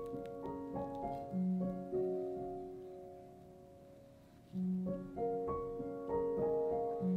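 Background piano music: a slow, gentle phrase of notes and chords that dies away about halfway through, then a new phrase begins.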